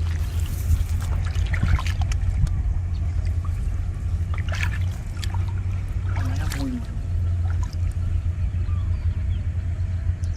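Shallow water splashing and sloshing in short irregular bursts over a steady low rumble.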